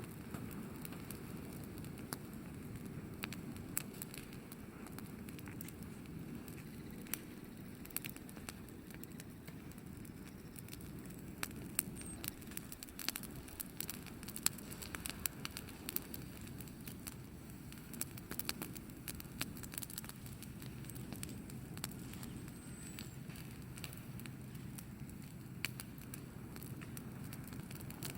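Wood bonfire burning: a steady low rumble of flames with irregular sharp crackles and pops of burning wood, which come thickest around the middle.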